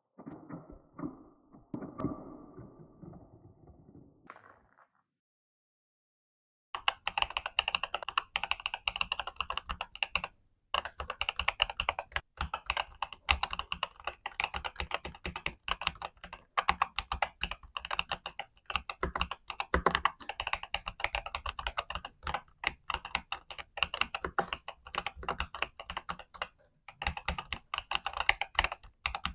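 Fast, continuous typing on a Skyloong GK87 Pro mechanical keyboard with Chocolate Rose switches and Milky Green keycaps, a steady patter of keystroke clacks. It starts about seven seconds in and pauses briefly twice. Before that come a few seconds of duller, lower knocks and rustles, then a short silence.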